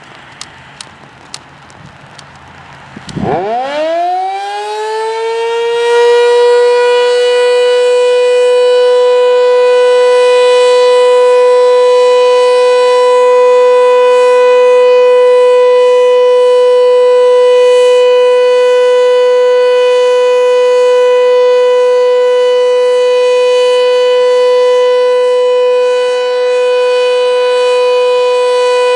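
Sentry 7V8-B outdoor warning siren winding up about three seconds in, its pitch climbing fast and then levelling off into a loud, steady alert tone that holds.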